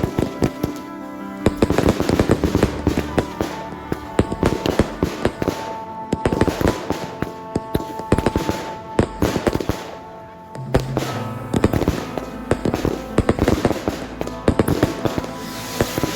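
Fireworks going off in quick succession, a dense run of sharp bangs and crackles with a short lull about ten seconds in. Music plays underneath.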